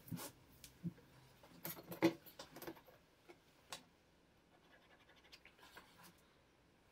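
Faint handling noises on a cutting mat: a roll of dark sheet material unrolled and smoothed with scattered rustles and knocks, the loudest about two seconds in. Near the end, a steel ruler is laid down and the sheet is lightly scratched while marking a line along it.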